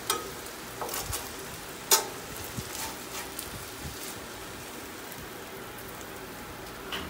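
Cheesesteak meat and peppers sizzling steadily on a Blackstone 22-inch flat-top griddle. Two metal spatulas scrape and clink against the griddle plate a few times as they slide under the food, the loudest about two seconds in.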